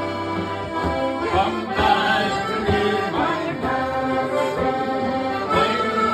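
Live Irish folk music: an accordion playing the tune over the steady beat of a bodhrán struck with a tipper, with men's voices singing together.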